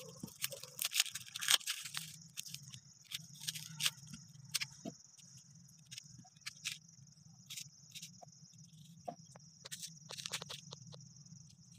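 A kitchen knife slicing through a red onion held in the hand: irregular crisp snaps and clicks as the blade cuts the layers and the slices drop onto the board. A steady high chirring of crickets runs underneath.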